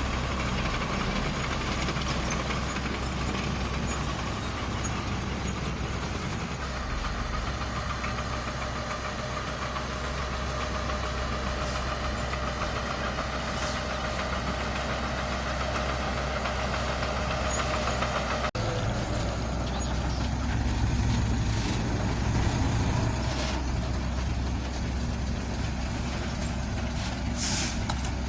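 Heavy diesel engines of earthmoving machinery running steadily, with a low drone that shifts a little in pitch. The sound changes abruptly about two-thirds of the way through, and there is a short hiss near the end.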